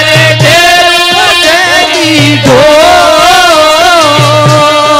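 Male Rajasthani folk singer singing a devotional katha in long held notes with ornamented turns and a falling glide about halfway through, over low deru drum strokes that come about every two seconds.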